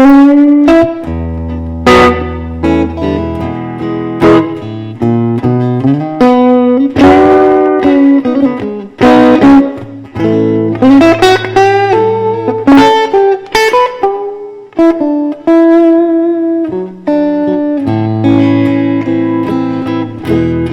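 Solo blues guitar played live, with picked notes and chords struck every second or so over held low bass notes.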